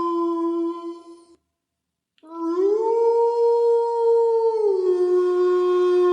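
Canine howling, long and steady in pitch. A held howl cuts off about a second and a half in; after a short silence another howl starts, rises to a higher held note, then drops back to a lower steady note near the end.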